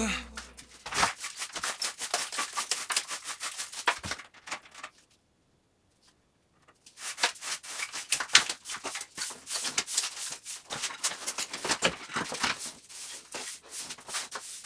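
Rapid, irregular clicking and scraping, like hand work on material, broken by about two seconds of dead silence near the middle.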